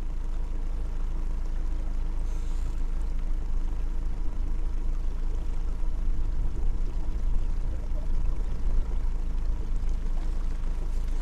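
Fishing boat's outboard motor running steadily at trolling speed, a low, even hum.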